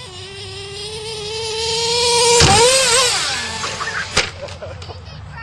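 Nitro RC truck's small two-stroke glow engine running at high revs, its whine climbing in pitch and loudness as the truck comes closer. About halfway in a hard thud cuts across it and the note wobbles and drops away, with another knock about a second and a half later.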